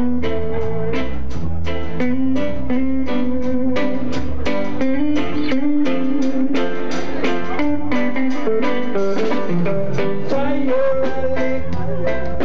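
Live reggae band playing an instrumental passage: an even beat with bass, and guitar or keyboard holding a sustained melody line.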